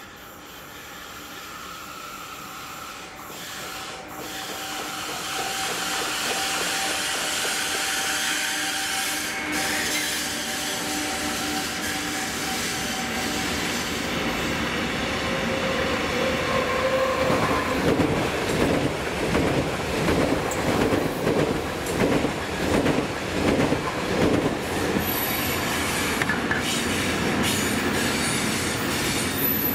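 An electric locomotive hauling an intermodal container freight train grows louder as it approaches, with its steady motor hum dropping in pitch as it passes. The container wagons then roll by with a rhythmic clickety-clack of wheels over the rail joints.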